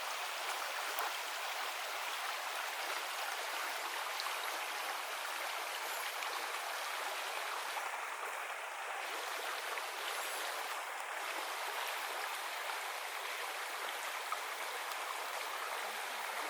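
Clear mountain river flowing over stones: a steady rushing hiss of moving water.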